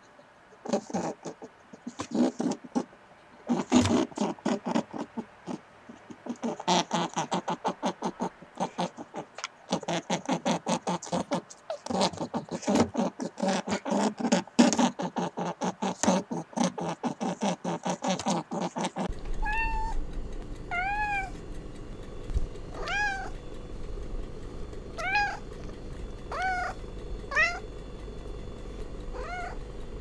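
A hare chewing grass: a long run of rapid, crunching clicks. About two-thirds of the way in, after a cut, a cat meows about eight times, short high calls rising and falling in pitch, roughly a second apart, over a steady low hum.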